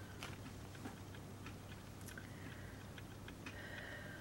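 Faint, irregular small clicks and taps, a few each second, over a low steady hum.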